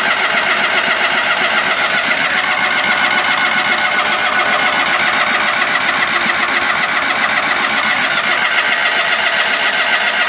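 Ingersoll garden tractor's engine being cranked on its electric starter in one long unbroken crank with a fast, even pulsing, and it does not catch. The owner puts the failure to start down to the choke set too high, flooding the engine.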